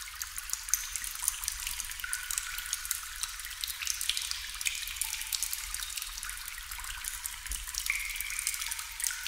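Water dripping steadily, many small drops landing in quick succession, some ringing with short high plinks.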